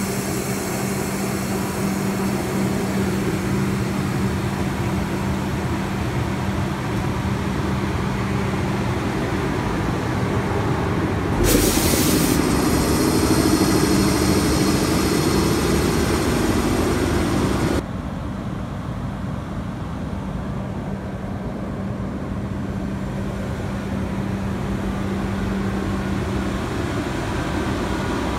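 ED75 electric locomotive standing by the platform, giving off a steady electrical hum. About a third of the way in there is a sudden hiss of air lasting about a second, followed by a louder drone that stops abruptly about two-thirds of the way through, before the steady hum carries on.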